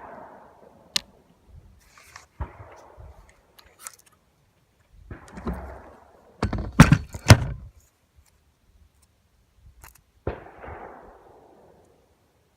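Gunshots with echoing tails, spaced a few seconds apart. The loudest is a quick string of several close shots between about six and a half and eight seconds in.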